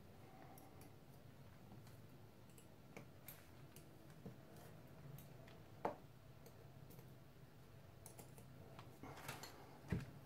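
Scattered faint clicks and taps of small metal parts being handled on a watchmaker's lathe headstock, with a sharper click about six seconds in and another near the end. Otherwise near silence.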